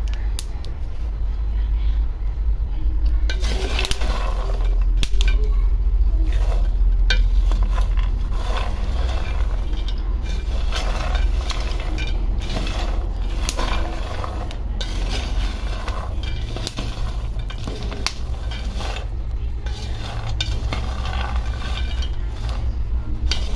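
Peanuts being stirred in a pan with a wooden spatula, rattling and scraping against the pan with many scattered sharp clicks, over a steady low hum. The peanuts are nearly done roasting, their skins darkening.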